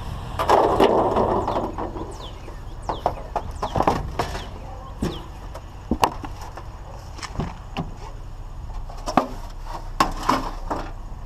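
Scattered knocks and clatters of scrap and junk being handled and moved at the curb, with a low steady hum underneath.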